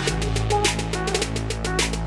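Electronic background music with a fast, steady drum beat, a melodic line and a deep sustained bass.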